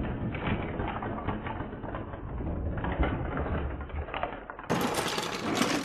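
A cardboard toy box and its plastic packaging being pulled open and handled, with irregular rustling, clicks and the clatter of small plastic Play-Doh tools.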